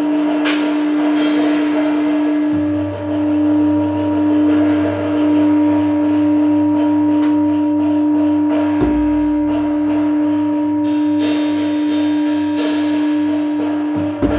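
Improvised drone music: a steady sustained ringing tone holds throughout, and a low pulsing didgeridoo drone comes in beneath it about two and a half seconds in. Bright metallic struck sounds cut in a few times, and a single deep thump lands a little past halfway.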